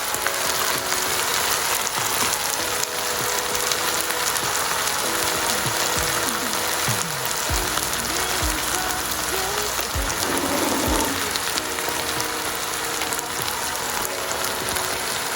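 Chicken frying in a pan with garlic, ginger and onion over low heat, a steady sizzle, with background music playing.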